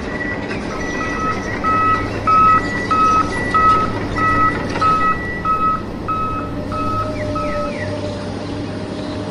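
Electronic beeping, about two beeps a second alternating between two pitches, like a vehicle's reversing alarm, over a steady low hum. The beeping stops near the end with a few short falling chirps.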